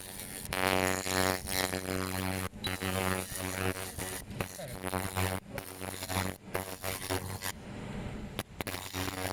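Fiber laser cleaning machine buzzing steadily as it works oil off metal, cutting out briefly several times as the laser stops and starts.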